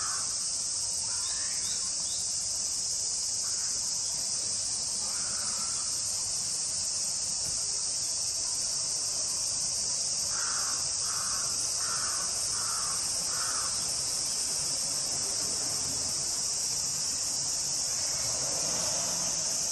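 Steady, high-pitched chorus of insects. Over it, a crow caws five times in a row about halfway through, with a couple of fainter caws earlier.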